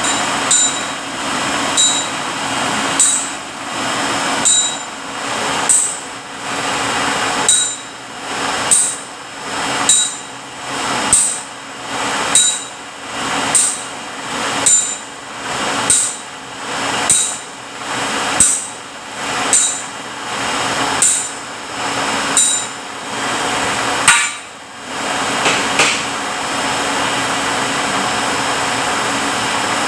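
Transmission dyno test rig running a rebuilt Eaton Fuller RTLO18918B 18-speed truck transmission. A sharp metallic clank with a high ring repeats about every second and a quarter, with a heavier clank near the end. The rig then settles into a steady running noise.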